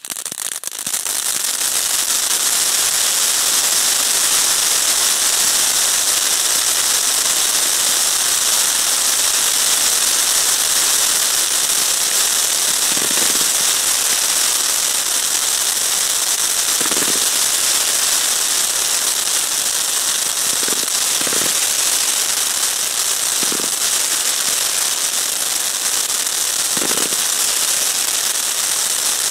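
Fireworks display: dense, continuous hissing and crackling from ground fountains and rising comets. It builds up over the first second and then holds steady, with a few low thumps scattered through the second half.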